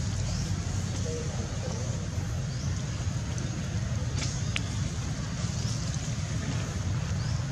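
Steady low rumble of outdoor background noise under a faint hiss, with a few faint high chirps and one sharp click about four and a half seconds in.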